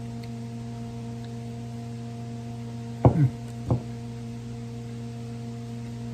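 A steady low hum of several fixed tones runs throughout. About three seconds in, two short sounds fall quickly in pitch, the second about half a second after the first.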